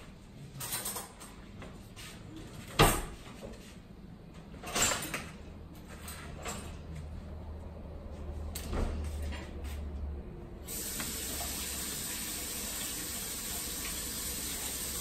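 Cutlery clinking on ceramic dinner plates: a few sharp separate clinks, the loudest about three seconds in. A steady hiss comes in a little after ten seconds and holds to the end.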